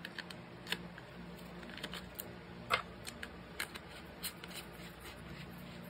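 Scattered light clicks and taps of AAA batteries being slid into a plastic lightstick handle and the battery cap being twisted on, the sharpest click nearly three seconds in.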